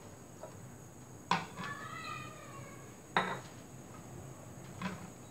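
Empty glass bottles clinking as they are handled and set down. A sharp clink about a second in rings on with a glassy tone, another clink follows around three seconds, and a lighter one comes near the end.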